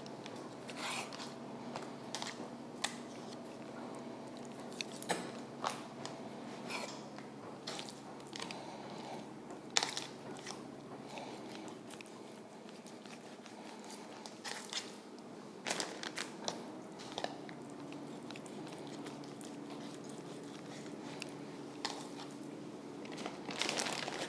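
Chef's knife slicing raw chicken breast on a wooden cutting board: soft wet cutting with scattered sharp taps of the blade and hand handling the meat, at irregular intervals, over a faint steady hum.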